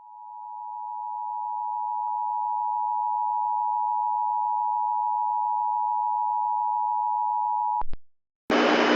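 Emergency Alert System attention signal: the two-tone alert of 853 Hz and 960 Hz sounded together, steady for almost eight seconds after fading in, then cutting off suddenly with a couple of clicks. About half a second later a loud hiss with a low hum comes in.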